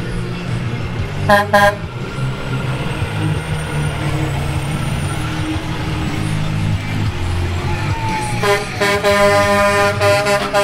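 A truck's engine running steadily with a low rumble, two short horn toots about a second in, and a quick string of repeated horn blasts near the end.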